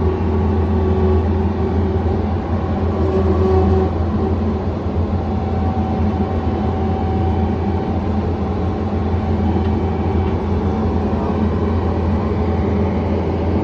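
John Deere 317 skid steer's diesel engine running steadily, with an even low hum.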